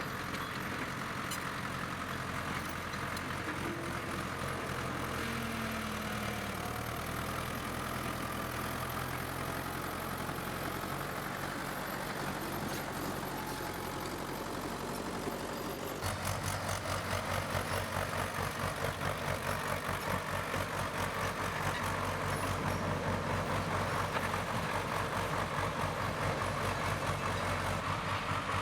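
Diesel bulldozer engine running steadily. About sixteen seconds in the sound cuts to a louder, rhythmically pulsing run of the engine.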